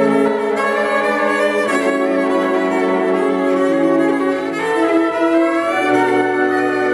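Solo cello with an orchestra of bowed strings playing long held notes, the harmony shifting to new chords a few times.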